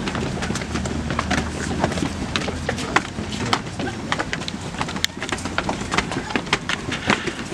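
Footsteps of a crowd walking on a concrete street, many irregular scuffs and clicks, with a low steady hum in the first second or so.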